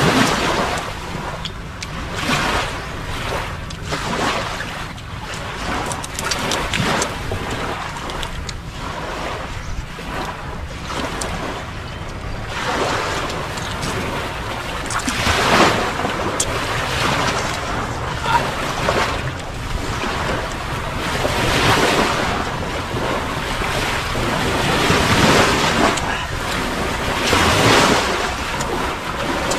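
Surf washing onto a beach, with wind blowing across the microphone; the noise swells and falls back every few seconds.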